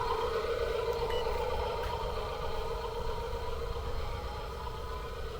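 Small electric motor of a radio-controlled toy truck whirring steadily, slowly getting quieter.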